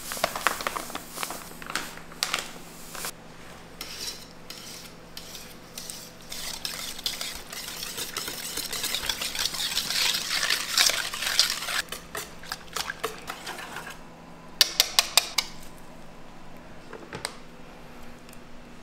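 Sauce being stirred in a stainless steel mixing bowl, the utensil scraping and clicking against the metal in a dense run through the middle. About two-thirds of the way through comes a quick run of about six sharp knocks on the bowl, followed by lighter scraping.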